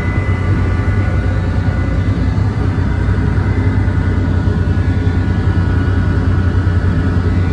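A trawler's machinery running steadily: a loud, unchanging low drone with a faint high whine above it.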